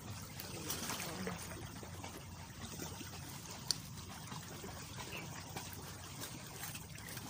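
Shallow seawater trickling and lapping over rocks at the shoreline, a steady wash, with one sharp click about three and a half seconds in.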